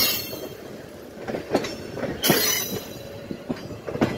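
Railcar rolling slowly along the track, heard from aboard: wheels knocking and rattling irregularly over the rails, with a loud screech of wheel flanges against the rail about two seconds in.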